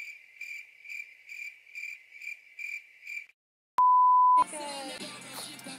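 Cricket chirping sound effect: one high chirp repeating about twice a second, the stock cue for an awkward silence. It stops, and after a short silence a loud, steady bleep tone sounds for about half a second. Music comes back in just after the bleep.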